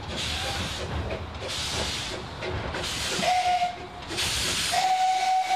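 Replica of Stephenson's Planet steam locomotive working slowly: its exhaust gives a slow beat of loud steam chuffs, about one every second and a half. A steady high tone, whistle-like, sounds twice: briefly about three seconds in, and longer near the end.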